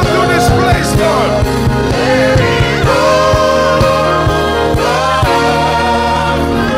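Gospel worship music: voices singing long, wavering notes over sustained chords, with a steady drum beat underneath.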